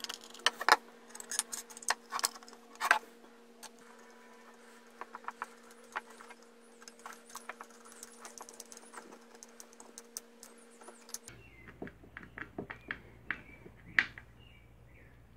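Small screwdriver turning wood screws into a pine board: an irregular run of clicks, ticks and scrapes as the screws turn and the parts are handled, with a sharp click near the end.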